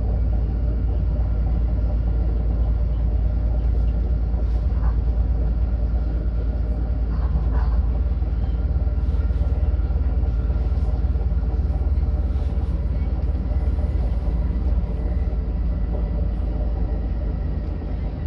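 A moving commuter train heard from inside the passenger carriage: a steady low rumble, with faint steady tones over it.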